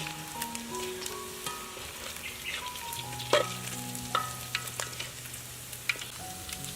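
Food sizzling in a hot pan while being stirred, with sharp clicks of a utensil against the pan, over soft background music.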